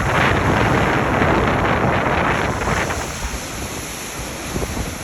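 Strong wind buffeting the microphone over lake waves breaking on the shore of Lake Erie. A wash of surf is loudest in the first couple of seconds, then eases.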